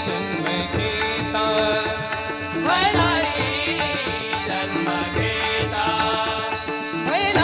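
Marathi devotional bhajan music without words: sustained pitched notes over steady drumming, with a rising, sliding melodic phrase about three seconds in and again near the end.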